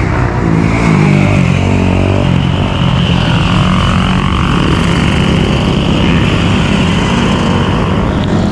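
Several motorcycles revving and riding past, their engine pitch rising and falling as they go by.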